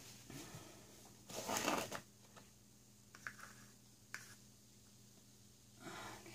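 Scraping and rustling handling noises as a palette knife and stick are worked over a paint-covered table cover. There is one louder crinkling scrape about a second and a half in, then a few small clicks, over a faint steady hum.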